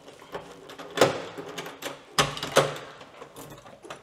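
A run of sharp clicks and knocks from things being handled indoors, the loudest about a second in and two more a little after two seconds, with smaller clicks between.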